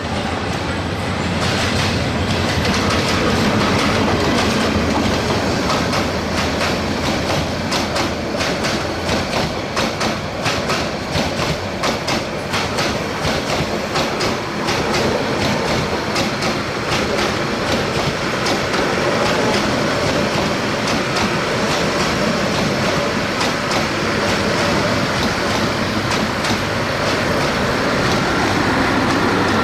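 Passenger coaches of an express train rolling past at speed: a steady loud rumble of steel wheels on rail, with rapid clickety-clack as the wheels cross the rail joints. The sound swells about a second and a half in and then holds.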